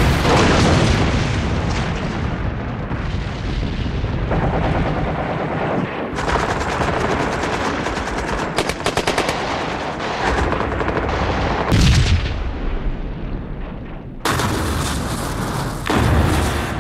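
Battle gunfire: rifle shots and machine-gun fire over a steady din, with a rapid machine-gun burst about halfway through and heavy booms near the end.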